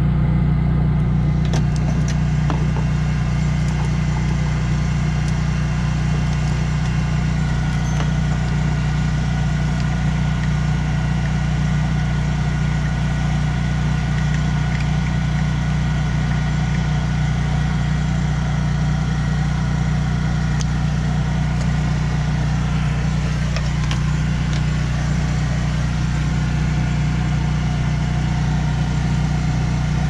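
Kubota M135GX tractor's diesel engine idling steadily, a constant low drone.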